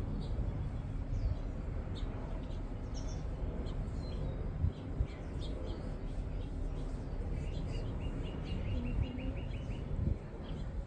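Small wild birds chirping with short, high calls, and a quick trill of about ten repeated notes a little past halfway, over a steady low background rumble.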